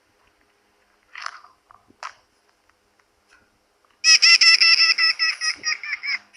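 High-pitched cartoon character vocal sounds: two short breathy bursts, then a loud, rapidly pulsing squeaky voice whose pulses slow down near the end.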